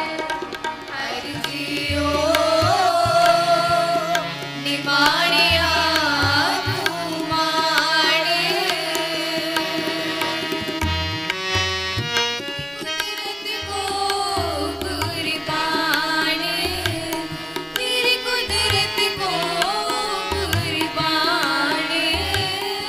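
Devotional Sikh hymn singing accompanied by tabla and harmonium. A wavering vocal melody runs over steady reed tones, with the tabla's deep bass strokes recurring throughout.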